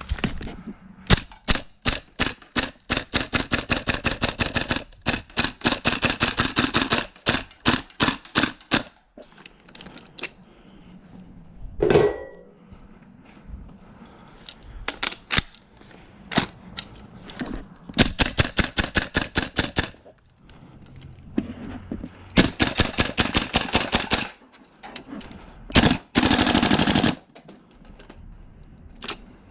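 Tokyo Marui MWS gas blowback airsoft rifle firing, in long strings of rapid sharp cracks broken by pauses, some runs so fast they blur together. A short pitched sound cuts in about twelve seconds in.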